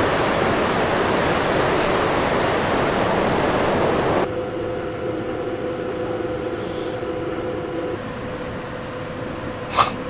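Wind and surf noise from a stormy winter sea for about four seconds. It then cuts off abruptly to a quieter steady hum with a faint low tone, and a short sharp click near the end.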